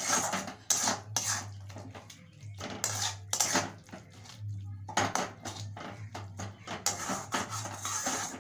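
A spatula scraping and clattering around a kadai, stirring spice paste of dried chilli, salt and turmeric as it fries. The strokes come about two a second, with a short pause about four seconds in.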